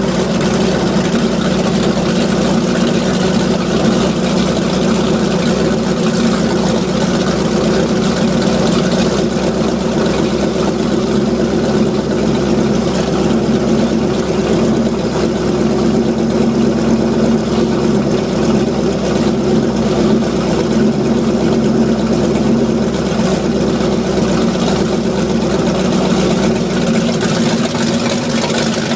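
Chevrolet 454 big-block V8 inboard of a jet boat running steadily at idle. The owner reports a popping noise at idle from this engine that enriching the mixture has not cured; advancing the timing seems to reduce it.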